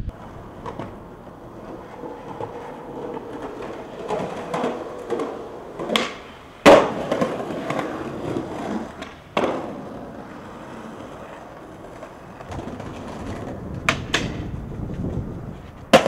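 Skateboard wheels rolling on a concrete sidewalk, broken by several sharp clacks of the board striking the pavement. The loudest clack comes about seven seconds in.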